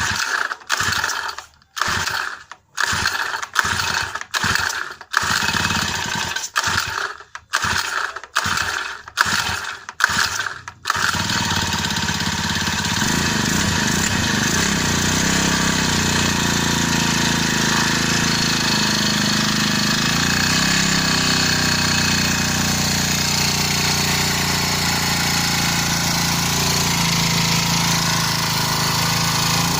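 Four-stroke brush cutter engine being pull-started: about ten quick recoil pulls roughly a second apart, then it catches about 11 seconds in and keeps running, its speed wavering up and down for a few seconds before settling into a steady run.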